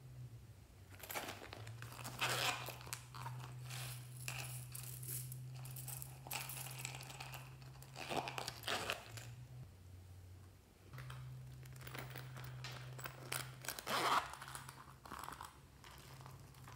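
Slime being squeezed and stretched by hand, giving irregular crackling and crunching clicks.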